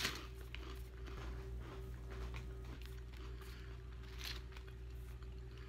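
Faint crunching and chewing of shish-kebab flavoured potato chips: short crisp crunches, the loudest at the start and about four seconds in, over a steady low hum.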